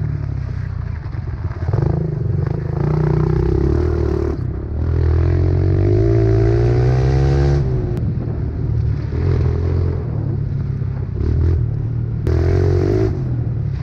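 Pit bike engine running under load as it is ridden, the revs rising steadily through the middle and falling away sharply several times as the throttle is closed and reopened.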